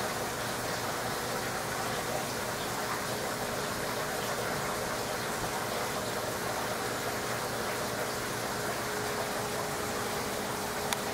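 Steady rushing water noise from a large aquarium's filtration, with a faint steady hum under it.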